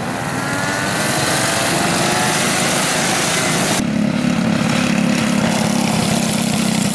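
Several small kid kart engines revving up together, their pitch rising. About four seconds in, the sound changes abruptly to one kart engine running at a steady pitch.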